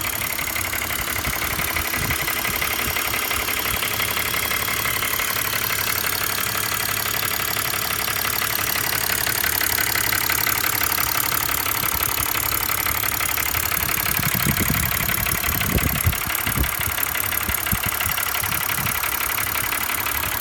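2005 BMW 325i's M56 straight-six engine running steadily, with the rattle it has been recorded for. A few louder, irregular low knocks come about two thirds of the way through.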